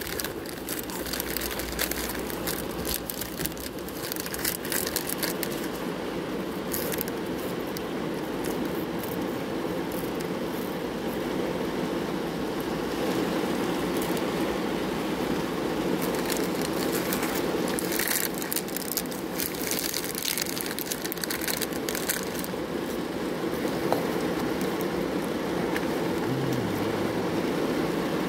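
Close-up eating of cottage cheese: wet mouth clicks and crackles, over a steady low rumble.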